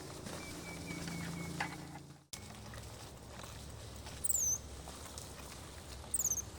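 Two short, very high chirps that fall in pitch, about two seconds apart, from a small animal, over a low steady rumble.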